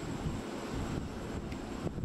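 Steady rumble of aircraft engines running, with wind buffeting the microphone and a thin high whine above it. One short click near the end.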